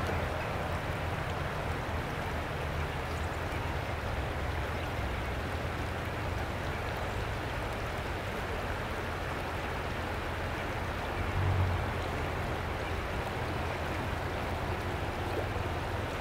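Shallow creek water running steadily over rocks, with a constant low rumble underneath that swells briefly about eleven seconds in.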